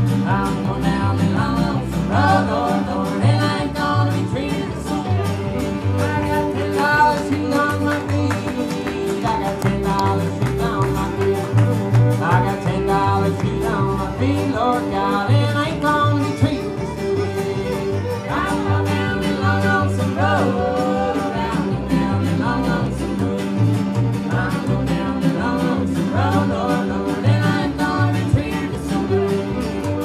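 Live acoustic Americana string band playing: a plucked double bass line under guitar and fiddle, with singing.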